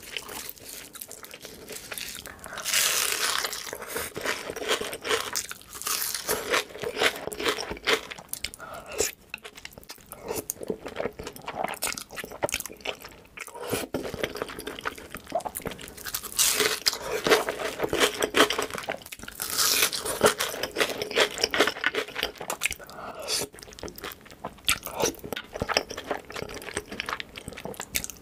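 Close-miked eating sounds: crunchy bites into a crisp fried hash brown patty and the chewing that follows, with several louder crunches spread through. Near the end he eats a mouthful of creamy Alfredo noodles.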